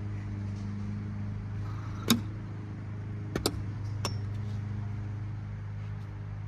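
Sharp knocks: a loud crack about two seconds in, then two quick clicks and a lighter tap, over a steady low hum.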